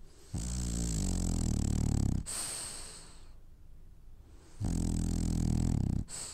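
Sleeping French bulldog snoring: two long, loud buzzing snores, each ending abruptly and followed by a softer hissing breath.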